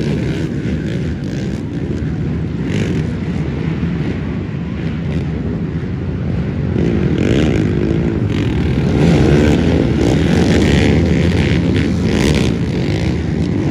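Several racing ATV engines revving hard as the quads accelerate, their pitch rising and falling with each throttle change. It gets louder about halfway through as a row of quads passes close by.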